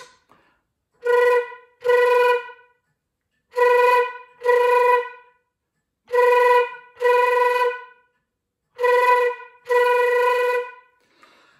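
Concert flute playing eight short throat flutter-tongued notes in four pairs, all on the same pitch, with pauses between the pairs. These are short bursts of throat flutter tongue, the first stage of putting the technique into playing; the last note is held a little longer.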